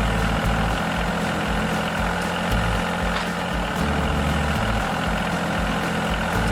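A vehicle engine running steadily at an even, low pitch.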